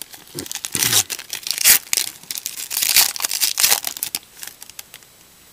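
A 2013 Panini Elite Extra Edition baseball card pack's foil wrapper being torn open and crinkled by hand, a dense run of sharp crackles that dies away about four and a half seconds in.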